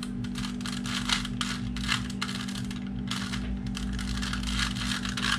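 Plastic Rubik's Cube layers being turned quickly by hand: a dense, irregular run of clicking and rattling over a steady low hum.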